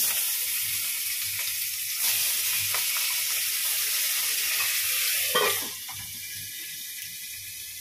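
A fish head frying in hot oil in a steel kadai, sizzling and spitting hard. About five and a half seconds in, a steel lid is set down on the pan with a short knock, and the sizzle drops to a quieter, covered hiss.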